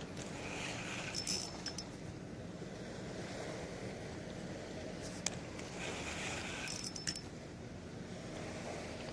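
Baitcasting reel being handled while casting and retrieving a lure: a few clusters of sharp metallic clicks and short whirrs, over steady wind and water noise.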